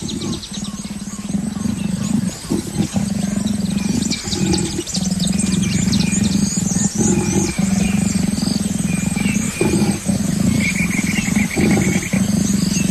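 Leopards growling low and continuously during courtship and mating, in long runs broken by short pauses, with birds chirping in the background.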